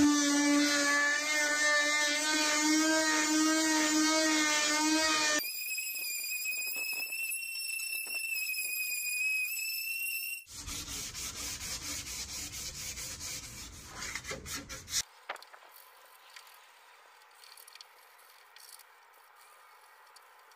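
A small right-angle disc sander whines as it scuffs the primed steel body of a 1954 VW Beetle, its pitch jumping much higher about five seconds in. From about ten seconds it gives way to a rougher scrubbing with a rapid flutter, and after about fifteen seconds there are only faint scratches of hand sanding with folded sandpaper.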